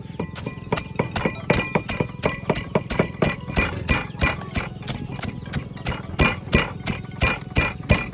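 Wooden pestle pounding in a wooden mortar, about three strokes a second, crushing peanuts into a green herb paste.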